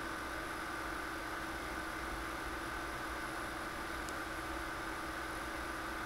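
Steady electrical hum and hiss from running computer equipment, with several constant tones and no bird calls; a faint tick about four seconds in.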